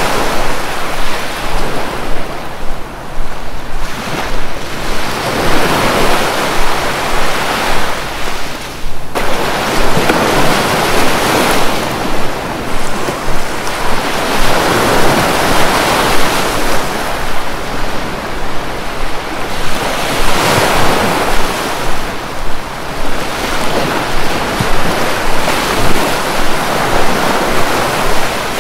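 Sea waves breaking and washing up the shore, the surf swelling and falling back every few seconds.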